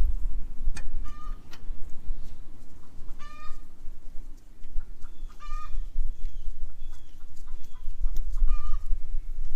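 Four short, high animal calls a few seconds apart, over a low rumble, with a sharp click at the start.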